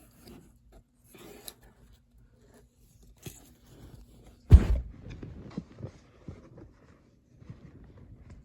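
Irregular rustling and scraping handling noises, with one loud thump about halfway through.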